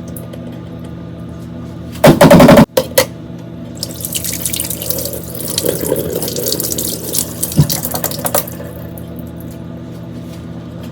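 Kitchen tap running water into a sink for about four seconds, over a steady low hum. Before it, about two seconds in, comes a very loud, short clatter that clips.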